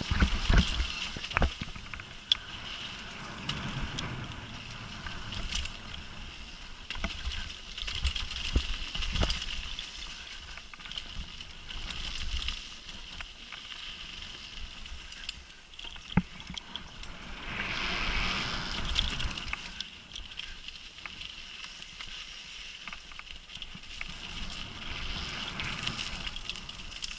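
Downhill mountain bike running over a dirt singletrack: tyre noise and the bike rattling over bumps, with wind on the microphone. Several hard knocks come at the start, and there is a louder rush of noise about eighteen seconds in.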